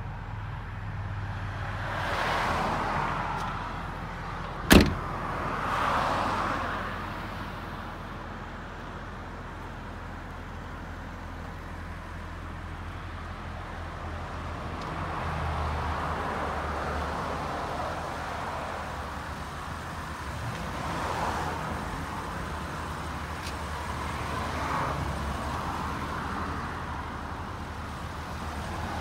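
One loud slam about five seconds in, the Stagea's rear hatch being shut, over the low steady idle of its RB25DET turbocharged straight-six. Passing road traffic swells up and fades a few times.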